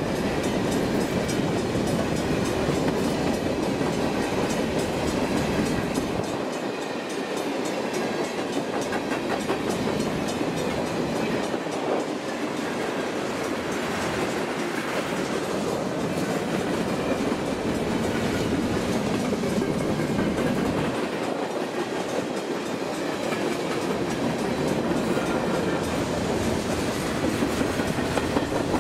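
A freight train's covered hoppers and tank cars rolling past at close range: a steady rumble of steel wheels on rail with a continuous rapid clickety-clack from the wheels.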